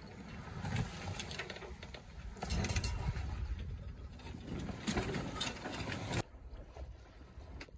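Cartwright 40 sailboat under sail: steady rush of wind and water with scattered clicks and creaks from the boat's gear. The sound drops off suddenly about six seconds in.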